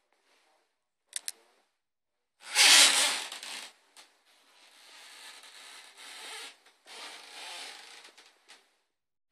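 Rubbing and rustling noise from a handheld phone being moved in close, loudest for about a second starting two and a half seconds in, then in quieter uneven stretches. Two short clicks come just over a second in.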